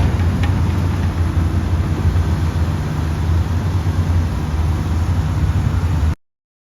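Komatsu D155 bulldozer's turbocharged diesel engine running steadily with a deep drone. It cuts off suddenly about six seconds in.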